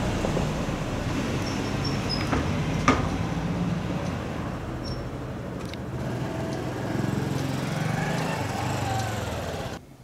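A road vehicle's engine running close by with a steady low hum, louder again from about seven seconds in, with a sharp click about three seconds in.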